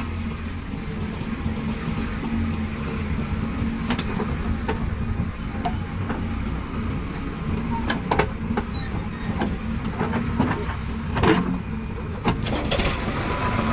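Heavy diesel machinery engine running steadily, with a few sharp clanks about eight seconds in and again around eleven seconds.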